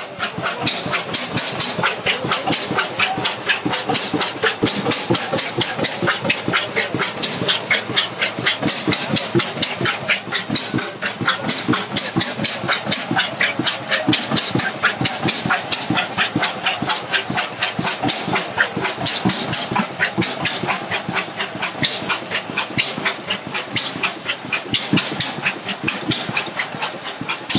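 Large vintage horizontal stationary engine running steadily, with big spoked flywheels, making a rapid, even clatter of sharp beats.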